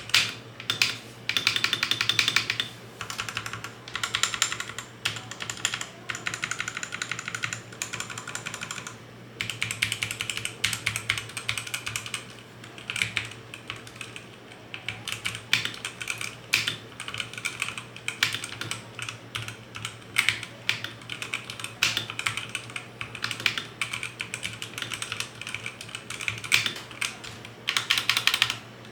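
Evofox Ronin TKL mechanical keyboard being typed on in quick, continuous runs of keystrokes, with brief pauses about 9 and 12 seconds in.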